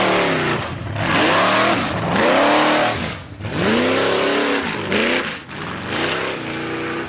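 Off-road race vehicle's engine revving up and falling back again and again, about once a second, as the throttle is worked on and off through a slalom.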